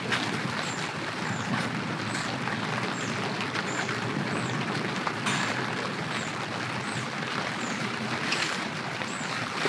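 Steady hiss of light rain falling around a camp tent, with a faint high chirp repeating about every 0.7 seconds over it.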